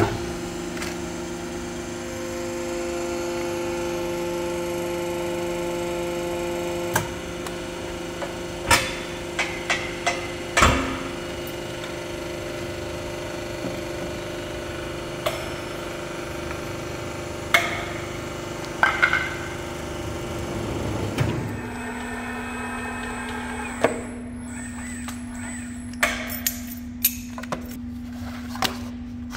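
Hydraulic press's electric pump motor running with a steady hum after its start button is pressed, under intermittent metallic clanks and knocks of steel parts and tools being handled. About 21 seconds in the motor hum stops, leaving a lower steady hum with more scattered clanks.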